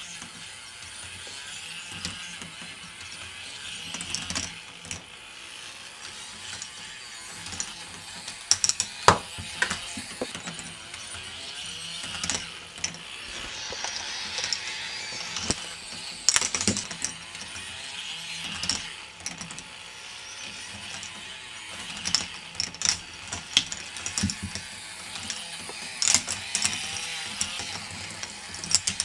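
K'nex multiple-arm ball lift running: plastic parts turning with a steady clattering whir, and sharp clacks at irregular moments as the balls are lifted.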